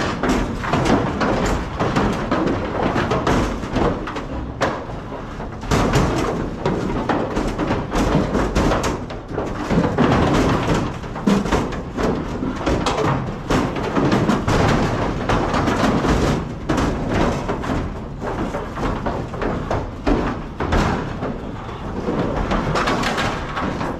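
Cattle being loaded into a metal livestock trailer: hooves clattering and bodies knocking against the trailer's floor and slatted steel sides, a busy, irregular run of bangs and thumps.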